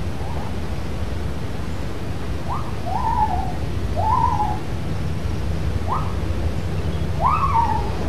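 A series of about five hooting animal calls, each a quick rise then a fall in pitch, starting a couple of seconds in and growing louder near the end, over a steady low background rumble.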